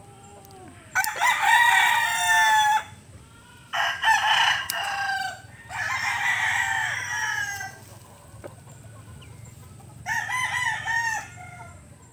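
Roosters crowing: four drawn-out crows, each one to two seconds long, the last one near the end shorter and fainter.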